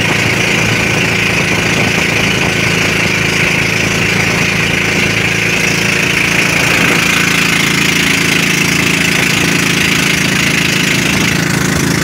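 A pump boat's 16-horsepower engine running steadily under way, with a constant hiss of water rushing past the hull.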